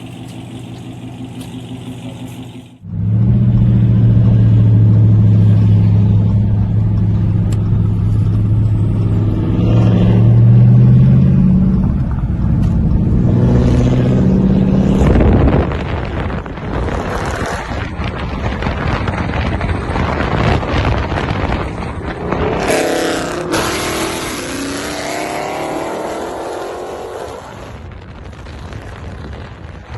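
A car's V8 engine bursts into a loud, steady drone about three seconds in and holds it. It climbs in pitch a few seconds before the halfway point, then turns to a loud, rough engine and exhaust sound that fades toward the end.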